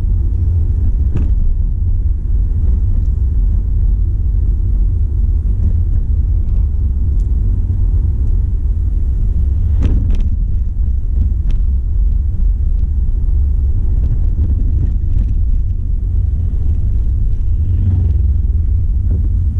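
Steady low rumble of a car on the move, heard from inside the cabin, with a single sharp click about halfway through.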